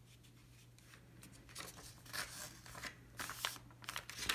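A sheet of letter-sized paper being folded and creased by hand: several short, soft rustles and scrapes, starting about a second and a half in.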